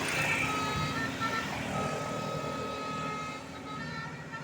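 Tour bus going past with its multi-tone 'telolet' horn sounding a string of held notes over engine and road noise, growing quieter near the end.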